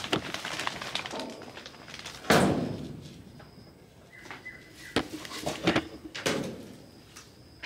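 A single loud thud about two seconds in, then several lighter knocks and clatters.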